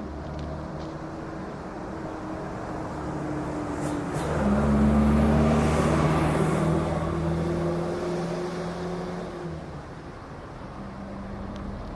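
A vehicle engine sound with a steady hum, swelling to its loudest about five seconds in and fading again by about ten seconds.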